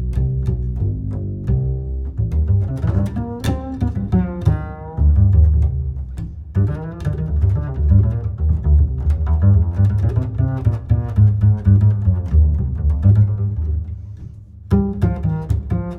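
Background music with a heavy, moving bass line and changing melodic notes, dipping briefly near the end.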